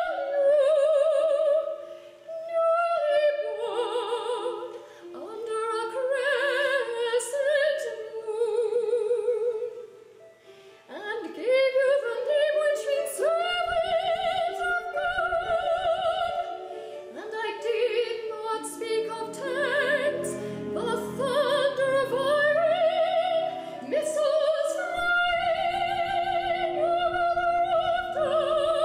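Soprano singing an art song with wide operatic vibrato, accompanied by oboe and harp. The voice breaks off briefly about ten seconds in.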